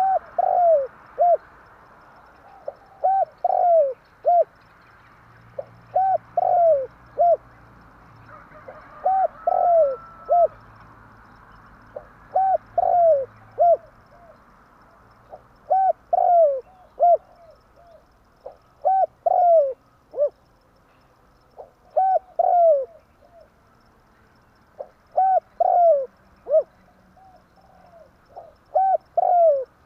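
Spotted dove (tekukur) cooing: a repeated phrase of three or four short, falling coos, given about every three seconds. It is the call used as a lure for wild doves.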